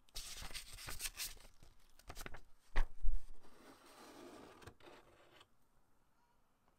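Unboxing handling noises: a paper leaflet rustling, then a few knocks and a heavy thump about three seconds in, followed by clear plastic packaging tray scraping against the cardboard box as it is lifted out. It goes quiet over the last second or so.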